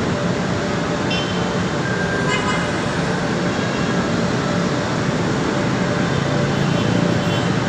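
Steady noise of heavy road traffic on a busy multi-lane avenue, with a few short horn toots, about a second in and again near the end.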